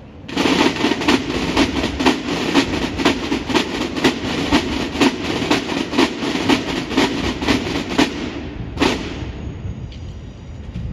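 Military band side drums beating a fast, even rhythm of about three to four strokes a second. The beat stops about eight seconds in, and one last stroke follows.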